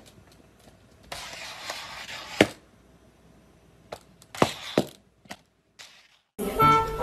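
A cat's clear plastic cone collar scraping along a tile floor and knocking against it: a scraping rush about a second in that ends in a sharp click, then several separate clicks and knocks.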